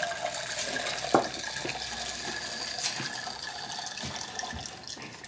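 Pink maize kernels poured from a small ceramic cup into a clay pot of boiling water, falling in as many small clicks and splashes, with a sharp clink about a second in.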